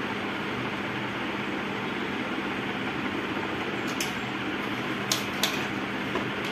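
Steady whooshing room noise like a running fan, with a constant low hum. A few sharp clicks about four and five seconds in, from tools and multimeter probes handled on the workbench.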